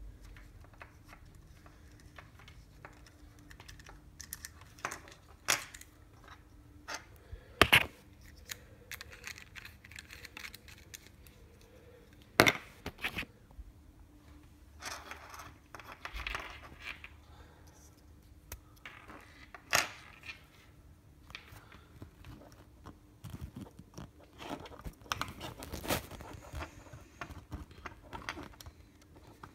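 Handling noise of small electronic parts and cables on a workbench: scattered clicks, taps and rustles, with a few sharp clicks standing out about 8, 12 and 20 seconds in, over a faint steady hum.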